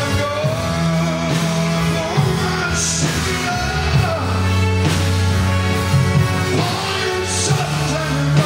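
Live church praise band music: bass guitar, keyboard and drums, with a voice singing long, wavering notes over it and cymbal crashes about 3 and 7.5 seconds in.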